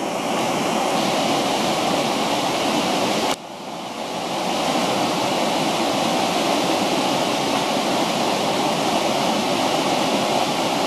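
A mountain river in spate rushing through rapids around boulders, a steady loud roar of white water from the rain-swollen current. The level drops suddenly a little over three seconds in and swells back within about a second.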